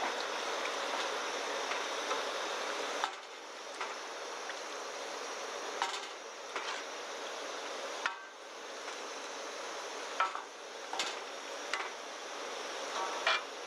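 A metal ladle knocking and scraping against a black iron wok while mapo tofu is stirred, about eight sharp clinks at irregular times. Under them runs a steady hiss from the pan cooking on a gas camp stove.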